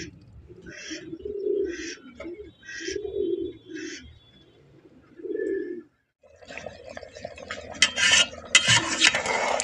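Domestic pigeons cooing, a call repeating about every second for the first six seconds. After a short pause, a pot of rice bubbles at the boil, with clinks from a metal ladle in the aluminium pot.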